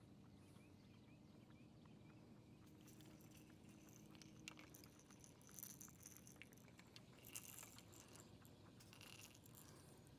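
Near silence: a faint steady hum, with faint crackling and small handling clicks from about three seconds in.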